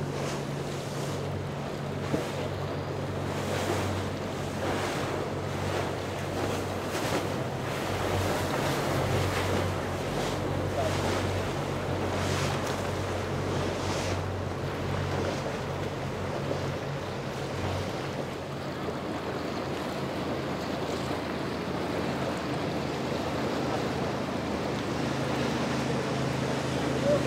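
Motorboat engines humming steadily over the wash of waves, with wind buffeting the microphone; the engine hum changes about two-thirds of the way through.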